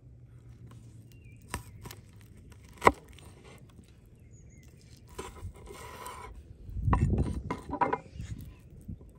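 Knife cutting through a raw salmon steak on a wooden cutting board. The blade gives two sharp knocks on the board, about one and a half and three seconds in, then heavier, duller thuds near the end.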